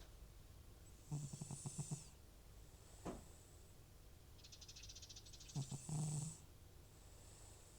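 An old cat snoring in its sleep: two rattling, fluttering snores, each about a second long, come about a second in and at about five and a half seconds, with a softer breath between. The owner links the snoring to a chronic runny, congested nose that returns whenever the cat is off medication.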